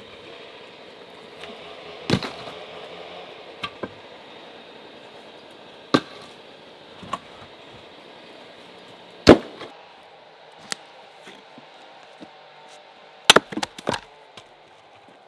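Split firewood logs knocking against each other as they are stacked by hand, a sharp wooden clunk every few seconds, with a quick run of several knocks near the end.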